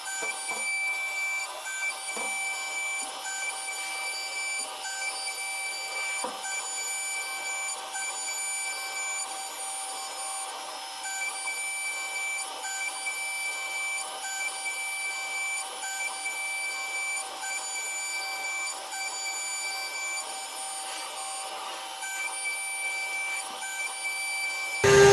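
CNC vertical machining centre running while milling, giving a steady high whine made of several fixed tones, with faint scattered ticks.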